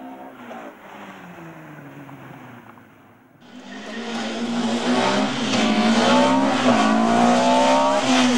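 Opel Kadett C Coupé slalom car's engine: at first a fainter engine note dropping in pitch as the car eases off. Then, about three and a half seconds in, a sudden switch to a much louder engine revving hard, its pitch climbing again and again as the car accelerates through the cones.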